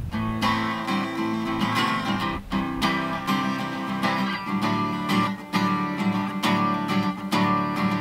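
Acoustic guitar strummed in a steady rhythm, chords ringing: an instrumental passage of a country song, without singing.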